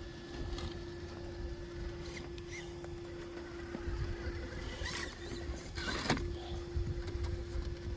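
Steady whine of an RC crawler's Hobbywing Xerun AXE brushless motor and ESC as the Redcat Gen8 crawls slowly up a steep dirt slope, with small scrapes and clicks of tyres on dirt and stones. A sharp crunch about six seconds in briefly breaks the whine.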